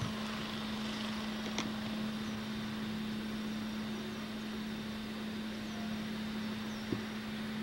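Steady background hiss with a constant low hum, two faint clicks and a few faint, high, short chirps.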